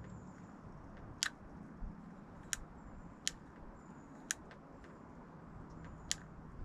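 Five sharp, separate clicks from fishing tackle being handled at a spinning reel, over a steady low background rumble.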